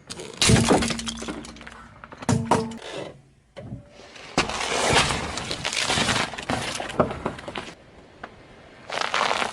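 Crunchy objects cracking and crackling as they are crushed under a car tyre. The crushing comes in bursts: short cracks just after the start and about two seconds in, a longer run of crackling from about four to nearly eight seconds, and a last burst near the end.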